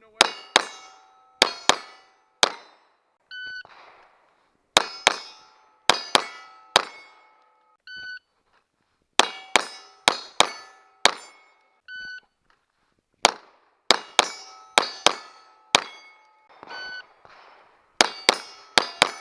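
Pistol shots fired in quick strings at steel targets, each hit answered by the ringing clang of the steel plate. A short electronic shot-timer beep starts each string, four times, and each beep is followed by a burst of about five shots.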